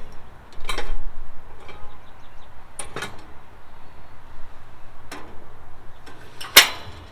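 Four sharp metallic clicks and knocks, the loudest near the end, over a low steady rush: parts of a just-lit kerosene heater being handled.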